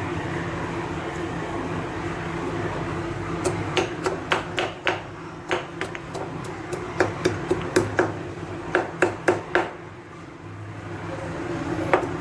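Repeated sharp knocks from kitchen work, about twenty at an uneven two to three a second, starting a few seconds in and stopping near the end, over a steady low hum.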